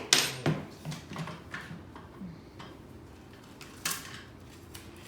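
Scattered clinks and knocks from handling the scooter's small assembly tool and parts, the loudest just after the start and another a little before the four-second mark.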